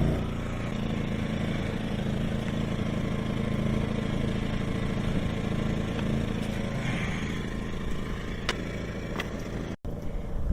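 Small portable gasoline generator running steadily at a constant speed, just after a cold-weather start on choke.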